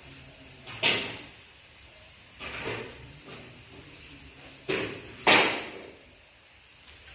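Aluminium window profiles being handled, knocking and clattering against each other and the rack in a handful of sharp knocks with short rings. The loudest knock comes a little past five seconds in.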